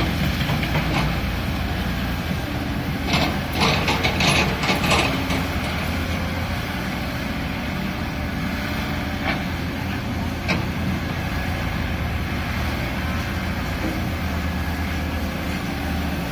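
Caterpillar excavator's diesel engine running steadily while it digs, with a quick cluster of knocks about three to five seconds in and two single knocks later.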